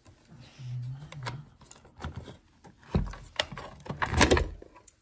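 Clicks and knocks of an old wooden-cased clock being handled and opened, with heavier wooden thuds about three seconds in and again just after four seconds.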